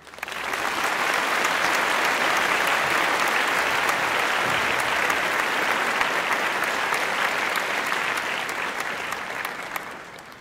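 Applause: many hands clapping in a dense, even patter that builds in over the first half second, holds steady, then fades near the end and stops abruptly.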